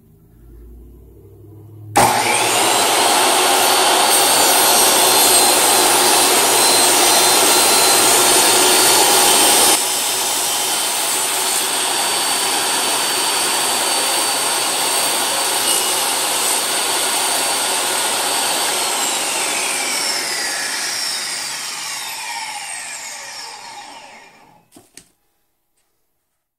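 Table saw switched on suddenly and running at full speed while the sled is pushed through a 12-degree bevel cut, its level dropping slightly about ten seconds in. Near the end it is switched off and the blade spins down with a falling whine.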